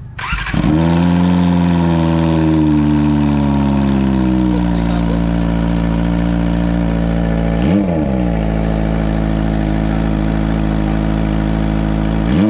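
Kawasaki ZX25R's 249 cc inline-four, breathing through an aftermarket DBS muffler, starts up and idles loudly; the idle comes down and settles over the first few seconds. Two quick throttle blips, one about eight seconds in and one near the end.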